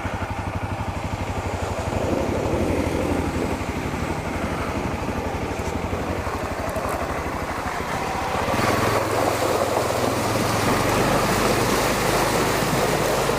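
Honda CRF250L single-cylinder four-stroke dirt bike engine running at low revs, its firing pulses evenly spaced. About eight and a half seconds in it gets louder, with more hiss over the engine as the bike picks up.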